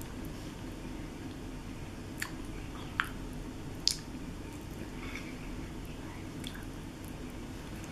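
Quiet eating sounds: a few short clicks and lip smacks from a metal spoon and mouth as a chocolate dessert is tasted, spaced about a second apart a couple of seconds in, over a steady low room hum.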